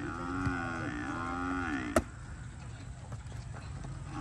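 Cattle lowing in one long drawn-out moo, then a single sharp smack about two seconds in as the volleyball is struck.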